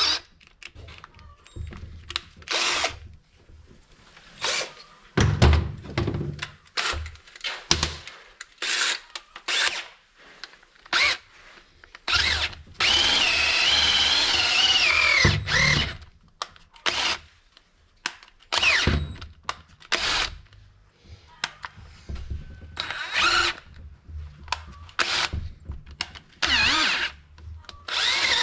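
Cordless drill run in many short stop-start bursts, with a few longer runs whose whine rises and falls as the bit works into the stripped bolt hole on the side of a Tofaş four-speed gearbox casing.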